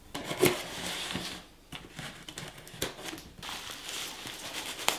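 A cardboard box being opened: scraping and a few sharp knocks of cardboard handling. Then hands rummaging through polystyrene packing peanuts, a steady rustling.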